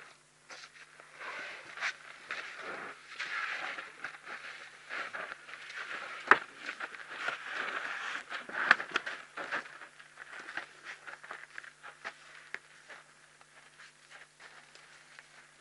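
African elephant moving right up against the microphone: a dense run of scraping, rustling and sharp knocks, loudest around the middle and thinning out toward the end.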